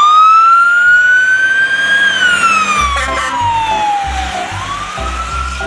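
Wailing fire-engine-style siren, its pitch sliding slowly up, then down, and rising again near the end. A children's music track with a thumping beat comes in under it about three seconds in.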